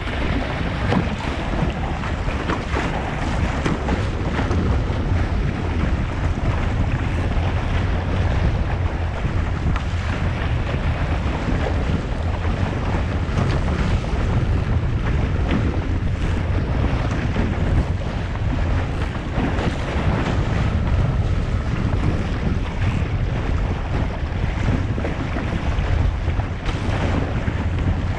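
Wind buffeting a GoPro's microphone with a steady low rumble, over water rushing and splashing along a Musto Skiff's hull as it sails fast in a breeze.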